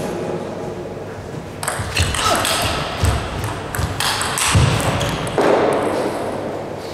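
Table tennis rally: the ball clicks sharply off bats and table in a quick exchange starting about a second and a half in, with a brief rush of noise near the end as the point finishes. The clicks ring out in a large hall.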